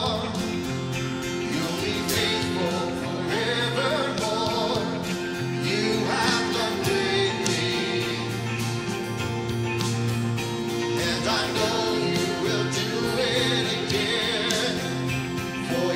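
Worship song in a church service: voices singing over band accompaniment.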